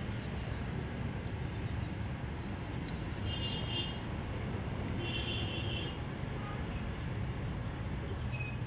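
Steady low background rumble, with two short high squeaks about three and five seconds in.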